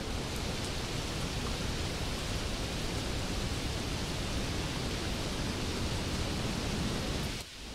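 Steady wind noise on the microphone outdoors: an even rushing hiss with low buffeting. It drops abruptly in level near the end.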